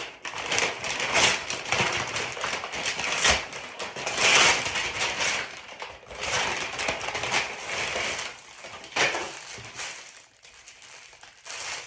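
Packaging crinkling and rustling in irregular bursts as a parcel is handled and torn open by hand, quieter near the end.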